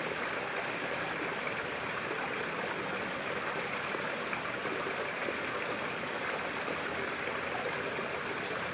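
Steady, even rush of running water, with a few faint high ticks now and then.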